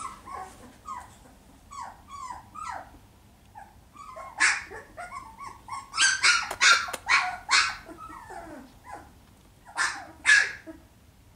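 Young puppy yipping and barking in play. Small falling whiny yips come first, then a sharp high bark about four seconds in, a quick run of barks a couple of seconds later, and two more near the end.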